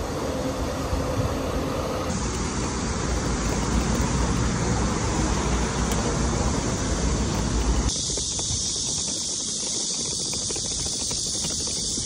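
Airport bus idling at the stop with a faint engine hum. After a cut, the wheels of a hard-shell aluminium suitcase roll over paving in a steady rumbling rattle. About eight seconds in, the noise changes to a thinner, higher sound.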